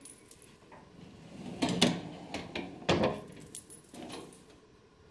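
Storage drawers being handled: a few knocks and rattles as a drawer is shut and another pulled open, the loudest about two and three seconds in.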